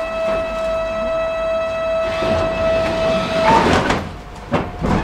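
Tram door-closing warning tone sounding steadily, cutting off about three and a half seconds in as the doors shut with a rush of noise, followed by two sharp knocks.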